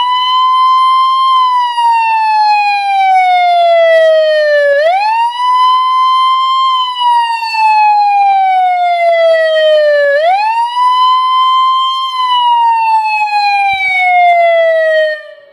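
Federal Signal SST MV electronic siren horn running on 24 volts, loud, sounding a siren tone. Each cycle sweeps quickly up, holds briefly, then falls slowly. The cycle repeats about every five seconds, three times over, and the sound cuts off at the end.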